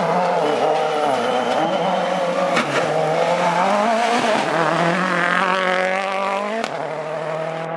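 A World Rally Car's turbocharged engine driven hard on a stage, its pitch falling and rising as it brakes and changes gear. About five seconds in it revs up in a long rising climb, then drops off sharply.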